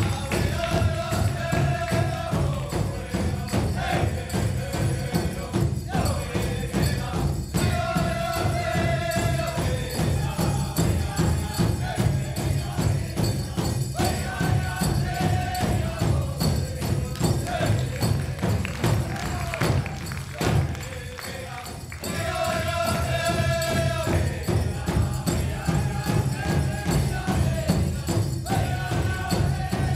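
Native American powwow-style music for a hoop dance: a steady drumbeat under chanted singing in repeated phrases. The music dips briefly about two-thirds of the way in, then resumes.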